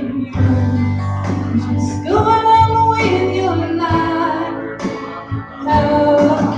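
A singer singing live into a microphone over instrumental accompaniment, holding long notes.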